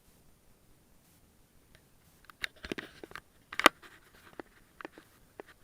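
Scattered sharp clicks and knocks with a short rustle, starting about two seconds in, the loudest about three and a half seconds in.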